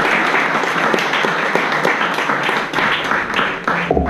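Audience applauding, cut off suddenly near the end.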